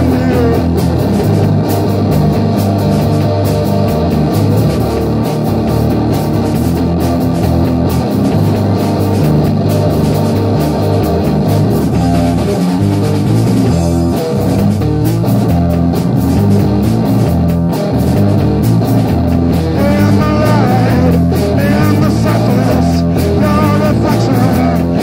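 Rock music: a full band recording led by guitar, playing continuously at a steady high level.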